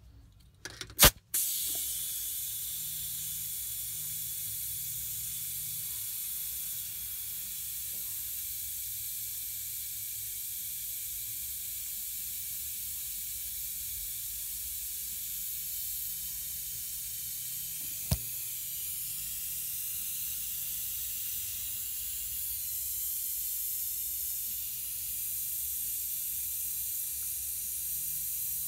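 Sharp clicks about a second in, then compressed air hissing steadily through a two-stage regulator and gauge fitting into a Daimler Ferret's fluid flywheel, which is being pressurised to about 25 psi to test the new seal for leaks. A single light click comes about midway.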